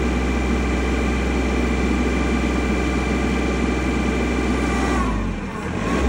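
Kubota L3301 HST tractor's three-cylinder diesel engine running steadily. Near the end it sags and breaks up for about a second, then picks back up. This is the intermittent loss of power that the owner traced to a faulty seat safety switch.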